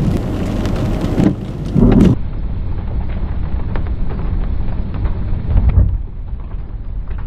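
Heavy rain with low rumbles of thunder from nearby lightning strikes, the loudest swells about two seconds in and again about five and a half seconds in.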